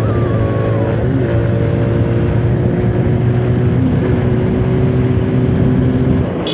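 Motorcycle engine running at a steady speed while riding on the road, with a steady engine note; the sound drops off a little after six seconds in.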